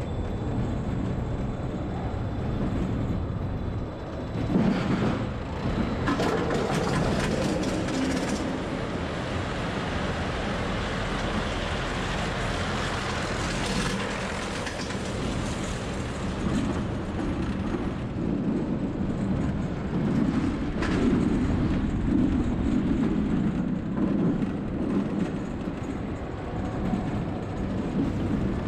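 S&S El Loco steel roller coaster train running along its track, heard from the front seat as a steady rumble and clatter of wheels on steel rail. A few sharper clanks come about five to eight seconds in and again about twenty-one seconds in.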